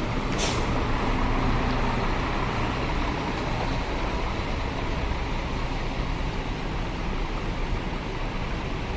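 Large buses' engines running steadily with road traffic noise, and a short hiss about half a second in.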